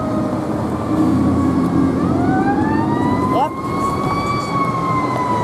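Fire engine siren wailing, its pitch rising slowly and then slowly falling, with a brief quick upward sweep about three and a half seconds in. A heavy low rumble runs under it for the first three and a half seconds, then drops away.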